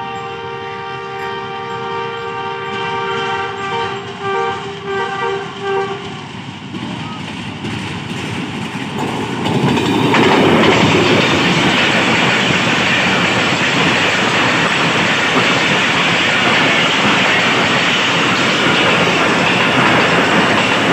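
ZCU-20 diesel locomotive sounding its multi-note horn on approach, one long blast and then a string of short blasts, followed by the locomotive and its passenger coaches rushing past at about 90 km/h, the noise building and holding loud and steady with wheels clattering over the rails.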